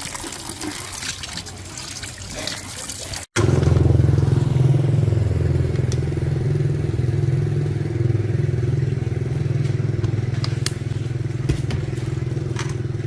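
A motor or engine running steadily with a low hum. It starts abruptly about three seconds in, after an uneven noisy stretch.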